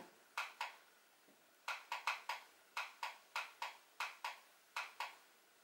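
Keys on a handheld electronic TENS massager controller being pressed repeatedly while stepping through its programme settings: about fourteen short, sharp clicks, many in quick pairs.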